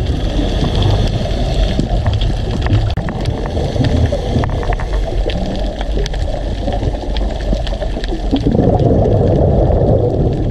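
Underwater sound through a diving camera's housing: a steady low rush of water noise with scattered sharp crackling clicks. The rush swells louder about eight and a half seconds in, for about two seconds.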